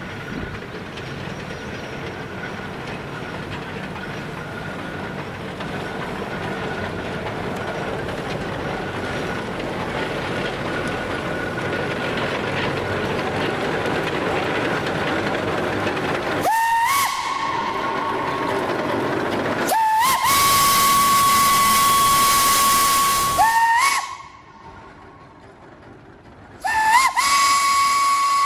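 Geared steam locomotive's steam whistle blowing a series of blasts, each sliding up to pitch as it sounds, the longest about three seconds. Before the whistling, a steady hiss of steam slowly grows louder.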